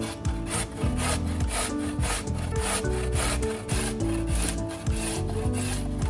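A carrot being grated on a stainless steel box grater resting on a wooden cutting board: rhythmic rasping strokes, a little over two a second.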